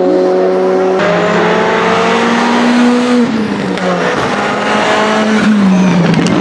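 Renault Clio N5 rally car's engine running hard at high revs. The sound changes abruptly about a second in. The pitch then climbs through a gear, drops sharply about three seconds in at a gear change, climbs again, and falls away near the end.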